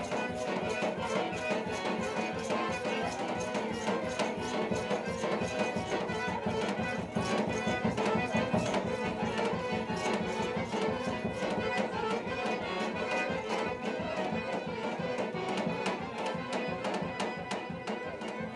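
Romani folk dance music led by a violin, over a fast, even beat.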